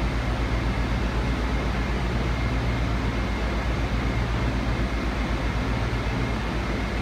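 Steady running noise inside a Washington Metro Red Line subway car on its way between stations: a low rumble and hum under an even hiss, with a faint high whine.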